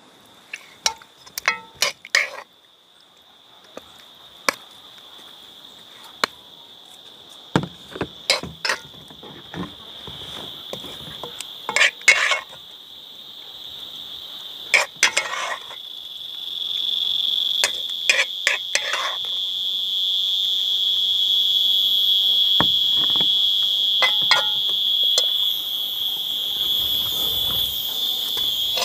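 Metal utensils clinking against pots and dishes in scattered sharp taps, as food is dished out. A steady high-pitched insect drone runs under it and grows much louder in the second half.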